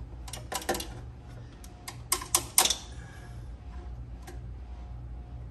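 Sharp clicks and metallic taps of a three-blade hand deburring tool working the cut end of a copper refrigerant line. They come in two quick clusters, about half a second in and again about two seconds in, over a low steady hum.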